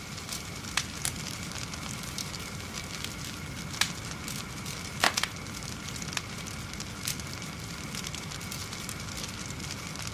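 A fire crackling, a steady low rumble with scattered sharp pops, the loudest a double pop about five seconds in. A faint steady high tone sits underneath.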